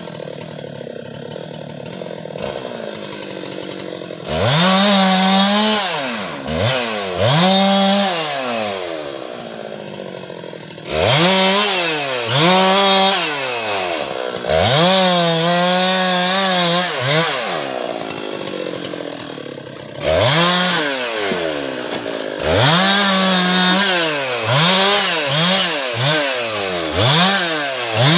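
Husqvarna 390XP two-stroke chainsaw running low for a few seconds, then revved to full throttle again and again, about a dozen times, each burst falling back between. This is a sawyer working the throttle while felling a teak tree.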